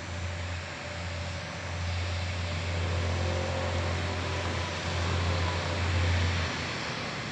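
KiHa 40-series diesel railcars approaching, their underfloor diesel engines droning steadily and growing a little louder. The low engine drone drops away about six and a half seconds in.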